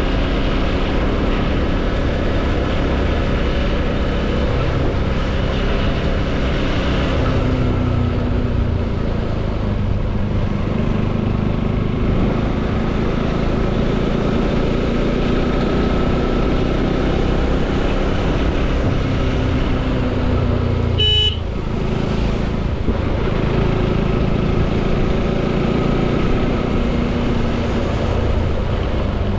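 Bajaj Pulsar NS200's single-cylinder engine running under way, its pitch drifting slowly up and down with the throttle. A short horn beep sounds about two-thirds of the way through.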